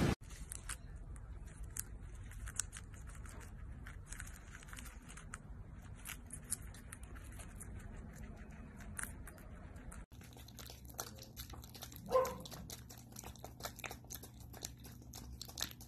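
Guinea pigs munching lettuce, a run of quick faint crunching clicks. About ten seconds in it changes to an opossum chewing with its mouth open, wet smacking clicks over a low steady hum, with one brief louder pitched sound a couple of seconds later.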